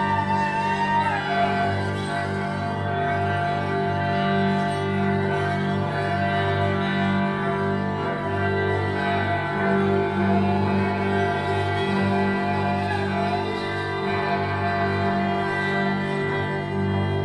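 Improvised electroacoustic drone music: an electric guitar through effects pedals, a clarinet and a bowed electric string instrument hold a dense layer of steady tones. A wavering, gliding pitch rises out of the drone about a second in.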